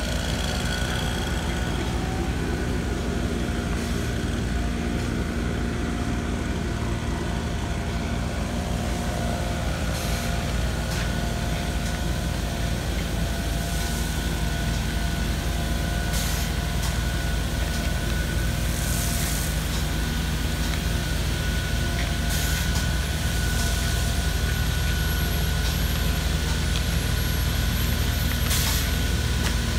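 A truck-mounted engine runs steadily at an even pitch under a constant hiss. A few short bursts of high noise stand out now and then.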